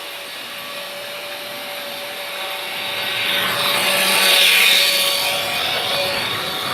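Freight train rolling past, wheels running on the rails with a steady thin tone and a hissing rush that swells to its loudest about four to five seconds in.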